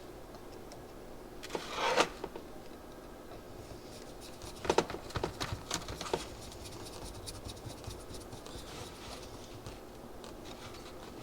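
Small metal clicks and scrapes of tiny screws and a screwdriver being worked into a go-kart carburetor's choke flap: a short scrape about two seconds in, then a cluster of clicks a few seconds later and scattered faint ticks.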